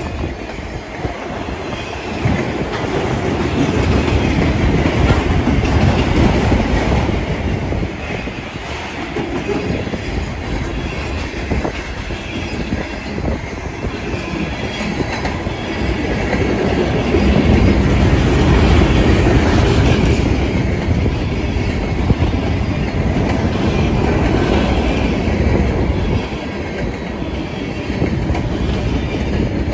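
Freight cars of a Norfolk Southern mixed freight train rolling past close by: a steady rumble of steel wheels on the rails, with clacking over the rail joints. It grows louder a little past the middle.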